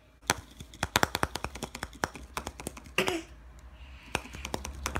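Fingers and fingernails clicking and tapping on a hollow plastic surprise-egg capsule as it is handled and turned over: a quick, irregular run of sharp clicks.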